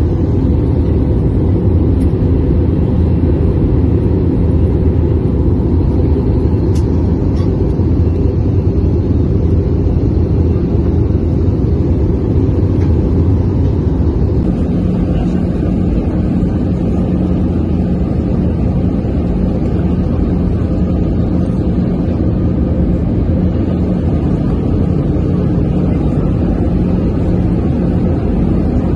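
Steady, loud cabin noise of an airliner in flight, heard from a window seat beside the engine: the jet engine running and air rushing past the fuselage. About halfway through, the hiss softens and a steady low hum comes through.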